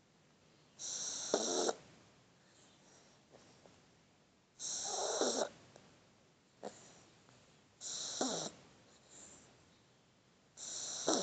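Shar Pei puppy snoring in its sleep: four rasping snores about three seconds apart, each lasting about a second, with soft breaths between.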